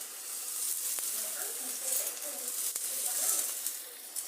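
Pancake batter sizzling in a lightly oiled pan over low heat: a steady hiss, with two light clicks about a second and nearly three seconds in.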